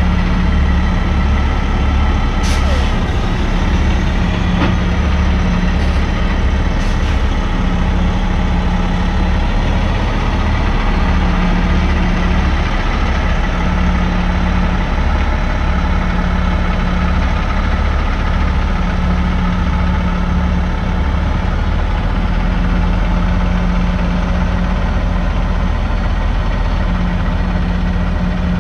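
A 2019 Peterbilt 389 semi truck's diesel engine running with a steady, deep drone as the rig drives slowly across the lot. A few brief sharp sounds come in the first seven seconds.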